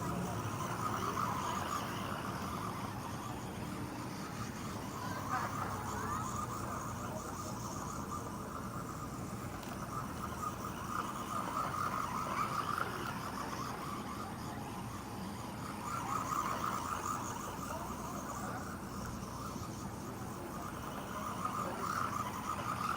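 Small electric motor and drivetrain of a 1/18-scale RC monster truck whining in repeated surges, about every five seconds, as it is driven.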